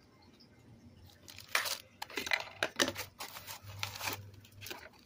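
Small plastic zip-lock bag holding Allen wrenches and screws crinkling and rustling as it is handled, in irregular bursts starting about a second and a half in.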